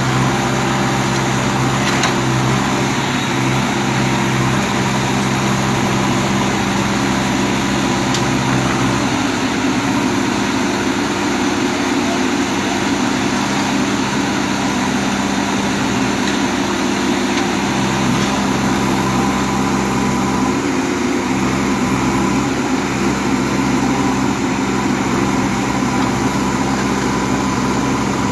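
Bulldozer's diesel engine running steadily, a low drone whose tones waver a little in the middle.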